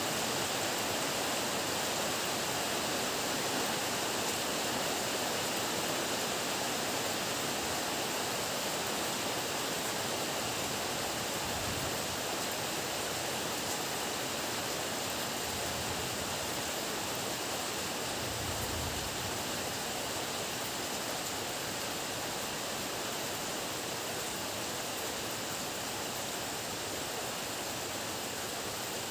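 Heavy rain pouring down in a steady, even hiss, with two brief faint low rumbles partway through.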